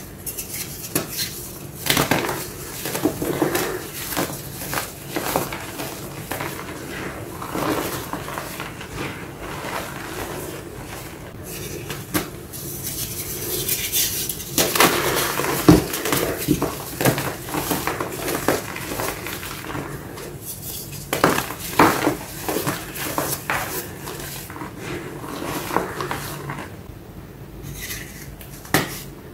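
Colored reformed gym chalk blocks filled with black paste being crushed and crumbled by hand: dry crunching and crackling, with many sharp snaps as pieces break and powder grinds between the fingers.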